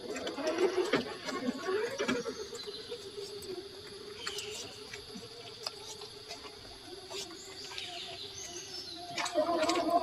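Electric motor of an RC4WD Gelande II scale crawler whining as the truck drives, its pitch wavering up and down with the throttle and stepping higher about nine seconds in, with a few sharp clicks along the way.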